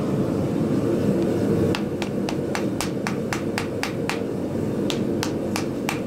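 Hand hammer striking a white-hot wrapped-eye axe head on the anvil in light, quick blows to forge-weld the steel bit in: about a dozen sharp strikes at roughly four a second, starting about two seconds in with a short pause near the middle, over a steady low rushing noise.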